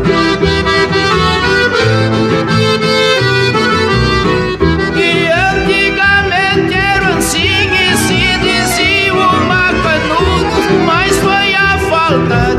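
Instrumental break in gaúcho trova music: an accordion plays chords with guitar accompaniment, and a wavering high melody line comes in about five seconds in.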